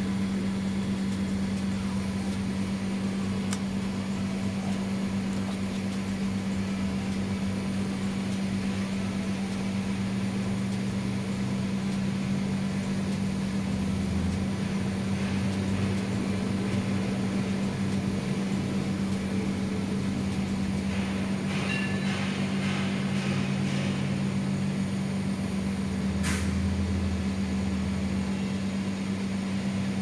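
A steady low hum at one unchanging pitch, with a single faint click about twenty-six seconds in.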